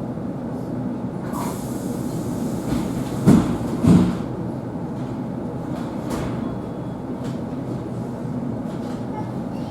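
Electric commuter train carriage's doors closing: a pneumatic hiss about a second in, then two heavy thumps as the doors shut, over the steady low rumble of the carriage.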